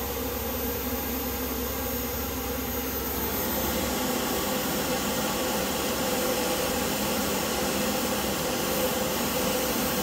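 Blower fan of a 7000 BTU 12-volt DC air conditioner running, a steady rush of air with a hum under it. The fan speed is being raised, and about three seconds in the airflow grows a little louder and brighter.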